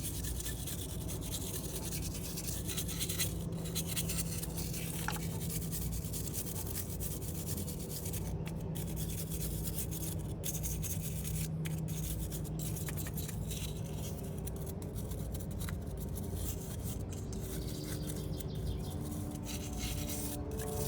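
Hand wire brush scrubbing the water pump gasket surface on the engine, a fast, continuous scratching to clean off old gasket chunks, over a steady low hum.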